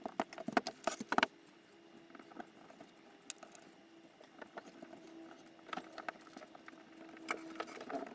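Small screwdriver and metal parts clicking and rattling as a hobby servo is screwed into an aluminium robot-arm bracket. A quick run of loud clicks comes in the first second or so, then sparse light taps with a faint steady hum beneath, and another short cluster of clicks near the end.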